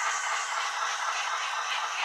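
OO gauge model locomotive and train running along the track, a steady whirring rattle of motor and wheels on rail.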